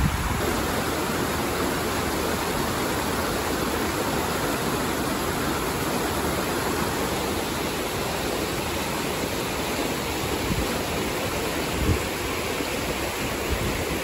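Shallow stream rushing over rocks, a steady, even splashing of whitewater.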